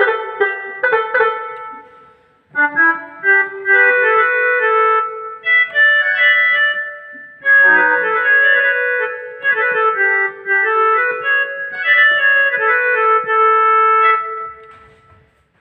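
Rockster RS41IN small electronic keyboard playing in one of its preset voices. A few struck notes ring out and fade, then after a short pause a melody of held notes plays for about twelve seconds and dies away near the end.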